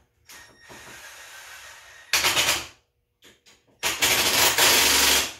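Cordless Milwaukee impact driver hammering, in two bursts: a short one about two seconds in and a longer one of about a second and a half near the end.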